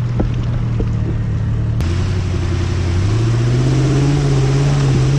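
Engine of an off-road rig running under load, with a few sharp knocks early on. Just under two seconds in, the sound changes abruptly, and about a second later the engine's pitch rises as it accelerates and holds higher.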